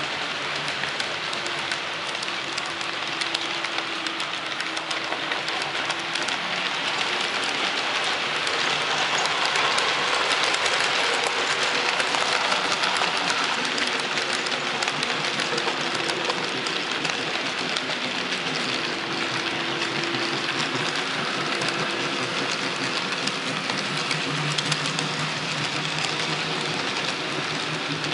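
HO-scale model freight cars rolling past on the layout track: a dense, steady rattle of small wheels on the rails, a little louder about ten seconds in.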